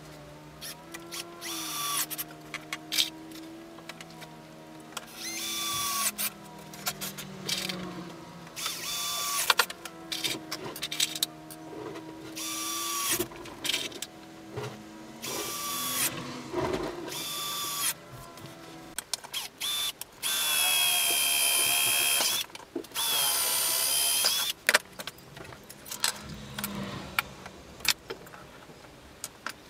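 Power drill running in many short spurts that speed up and wind down, with knocks and clicks of work between them. Near the end come two longer steady runs of about two seconds each.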